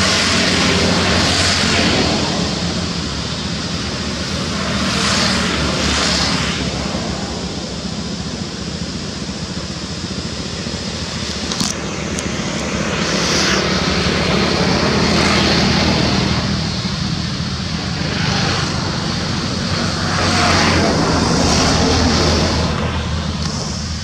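Continuous engine drone with a low steady hum, swelling and fading several times, with a rushing hiss at each swell.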